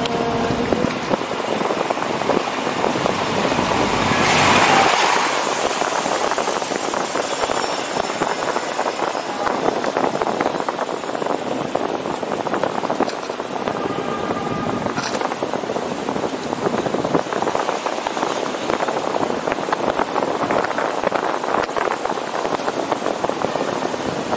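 City street traffic heard from a moving bicycle: a steady wash of passing cars and road noise, swelling as one vehicle passes close about four to five seconds in.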